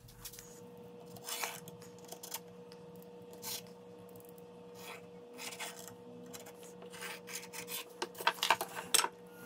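Pen scratching on a wooden scabbard blank as it traces along a sword blade, with hands and the steel blade shifting and rubbing on the wood. Short scratchy strokes, coming in a quick run near the end.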